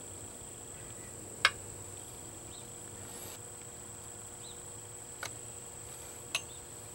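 A few sharp small clicks, the loudest about a second and a half in and two fainter ones near the end, as the outboard's water pump housing is handled and worked down over the driveshaft and impeller. A steady high-pitched whine sits underneath.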